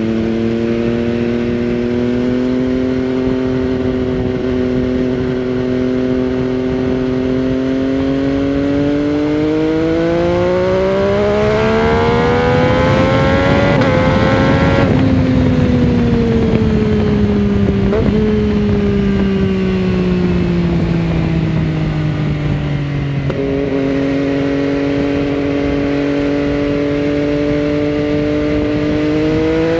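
MV Agusta Dragster 800 RR's three-cylinder engine through a Fresco Trio Corse aftermarket exhaust with dB killer, heard from the saddle while riding. It holds steady, then rises under throttle for several seconds. About halfway through it eases off and slowly falls back, and near the end the revs jump up suddenly and hold.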